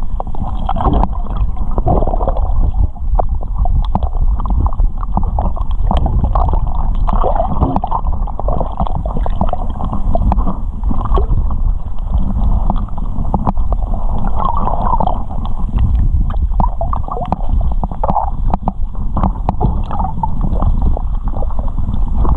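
Muffled underwater noise through a camera's waterproof housing: a continuous low rumble and gurgling of moving water, with scattered clicks and crackles throughout.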